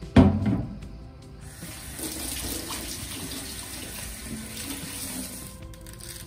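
A low thump, then a kitchen tap running onto a wooden chopping board in a stainless steel sink as the board is rinsed. The water starts about a second and a half in and stops shortly before the end.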